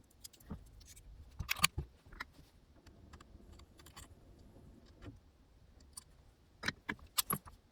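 Scattered clicks and light metallic rattles from small XLR connector parts and tools being handled. They come in a few clusters: about a second and a half in, around four seconds, and near the end.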